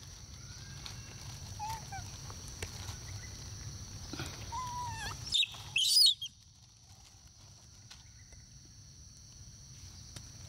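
Young monkeys calling: a few short, soft arched coos, then two loud high-pitched shrieks about halfway through, over a steady high insect drone.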